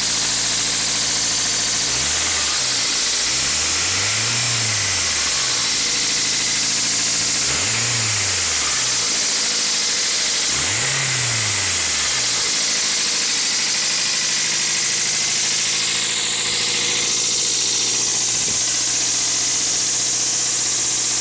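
2000 Toyota MR2 Spyder's 1.8-litre four-cylinder engine idling and revved up and back down a few times, then settling to a steady idle. The owner is trying to diagnose a rattling noise from the car.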